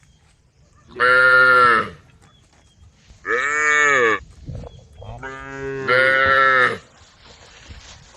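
Cows mooing in turn: about four calls of roughly a second each, every one rising and then falling in pitch, the last two overlapping.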